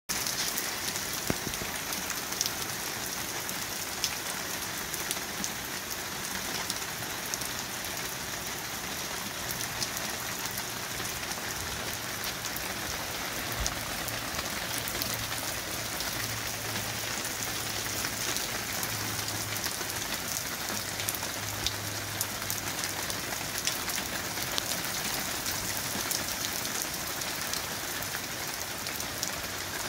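Heavy rain pouring steadily onto a paved driveway and road, with scattered sharper drop ticks close by.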